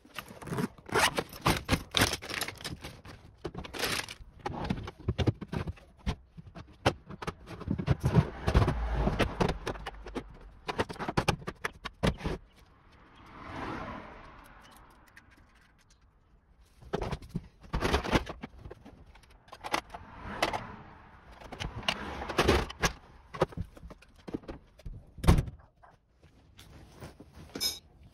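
Tools and equipment being rummaged and handled: an irregular string of scrapes, clunks and rattles, with a smooth swell of noise that rises and fades about halfway through.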